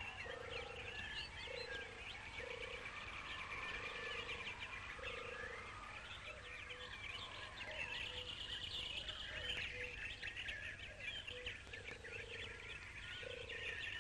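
A chorus of wild birds chirping and singing, with a low note of about half a second repeated roughly once a second beneath it.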